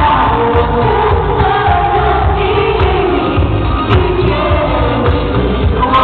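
A man and a woman singing a pop duet live into handheld microphones through a PA, over backing music with a steady beat.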